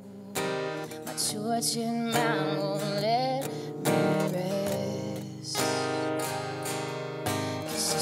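Acoustic guitar strummed steadily, with a woman singing over it, her voice sliding and wavering through a long sung line in the middle.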